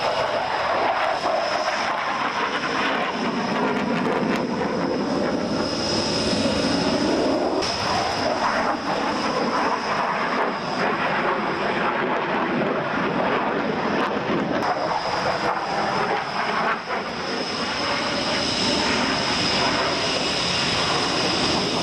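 Jet engine noise from a MiG-29 fighter's twin RD-33 turbofans in a display flight: a loud, continuous rush with a steady high whine on top.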